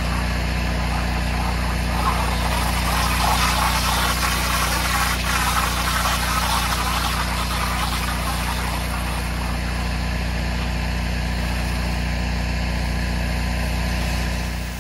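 Pressure washer engine running steadily under load, with the hiss of the water spray from the wand over it, the spray loudest between about two and nine seconds in.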